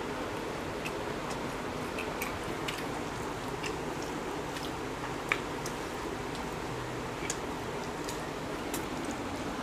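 Eating sounds: fingers working rice on plates and chewing, with scattered small clicks and one sharper click about five seconds in, over a steady background noise.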